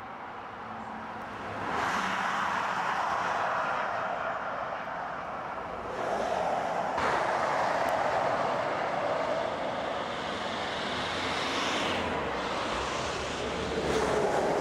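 Motorway traffic going by: a steady rush of tyres and engines that swells as vehicles pass, about two seconds in, again around six seconds, and near the end.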